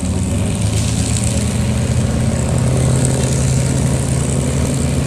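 Taxiing P-51 Mustangs' Packard Merlin V-12 engines running at low taxi power, propellers turning: a steady, loud low drone. Its main tone steps up slightly in pitch about halfway through.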